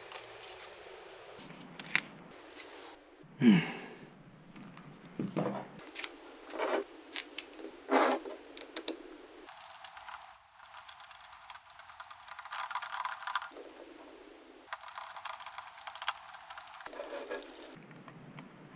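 Light clicks, taps and scraping of a small precision screwdriver and fingers working on the plastic earcups of a JBL E50 BT headset as it is taken apart, with one louder click about three and a half seconds in.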